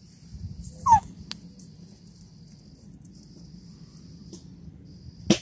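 A puppy gives one short whine about a second in, falling in pitch. A sharp click comes near the end.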